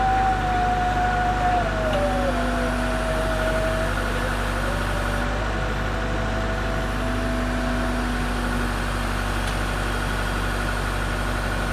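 A Case Super L backhoe loader's engine running steadily with a whine that drops in pitch about two seconds in and settles lower, the kind of pitch change made by the hydraulics working under changing load.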